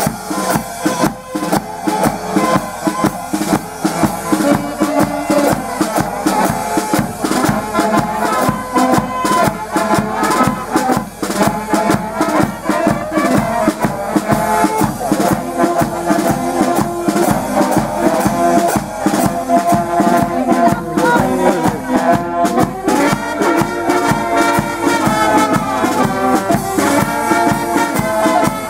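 Brass band music with drums: trumpets and trombones playing a lively tune over a steady beat.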